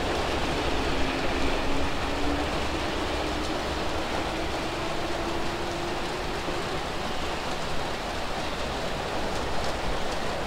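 Keihan 2200-series electric train pulling out and accelerating away, its traction motors giving a low whine that rises slowly through the first half. Steady rain hiss underneath.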